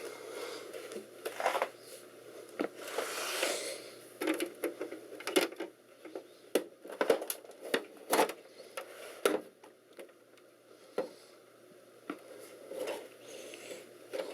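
Handling noise: a run of irregular clicks, knocks and rustles as objects are moved about and set down by hand, with a sharp knock every second or so through the middle.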